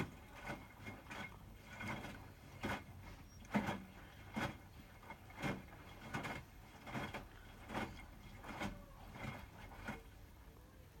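Hotpoint WMFUG 942 front-loading washing machine tumbling a wet load during its wash. The laundry thuds and sloshes in the drum about every 0.7 seconds over a low hum, and the thuds stop near the end.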